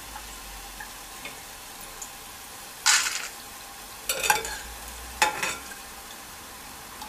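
Boondi frying in hot oil, a steady sizzle, while a perforated steel skimmer lifts the fried boondi out. The skimmer clanks against metal three times, about three, four and five seconds in.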